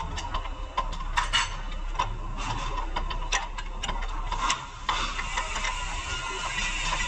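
Irregular clicks and taps of mechanic's hand tools during suspension work, over a steady background hum.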